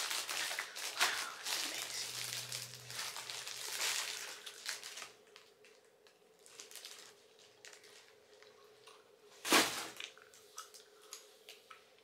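Packaging crinkling and rustling as a knife is unwrapped, busiest in the first five seconds and then softer, scattered rustles and clicks, with one sharp thump about nine and a half seconds in.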